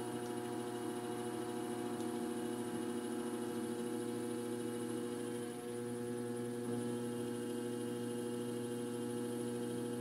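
Electric potter's wheel motor humming steadily while the wheel turns at a moderate speed, not too fast.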